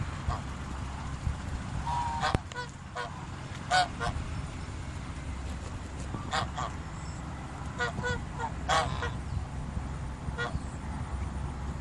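Geese honking: a string of short calls at irregular intervals, with a steady low rumble underneath.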